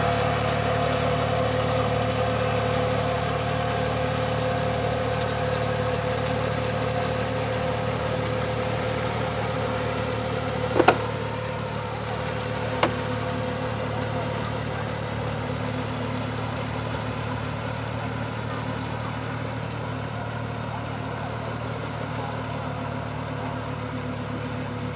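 Engine of a small cage-wheeled paddy tractor running steadily as it pulls a harrow through a flooded rice field, growing gradually fainter as it moves away. Two sharp knocks, about two seconds apart, come a little before the middle.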